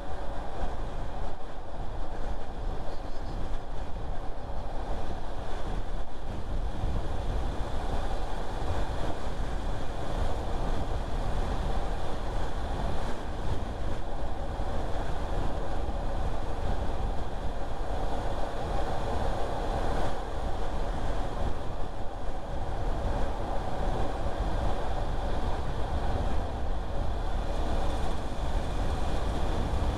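A car driving along at a steady pace: continuous road and tyre noise with a low rumble, with no sudden events.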